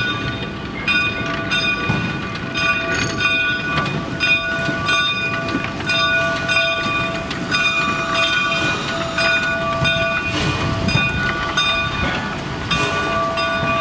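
Shay geared steam locomotive pulling a passenger train and working hard, its exhaust chuffing with a rough rumble. Over this, shrill metallic tones break off and return every second or so.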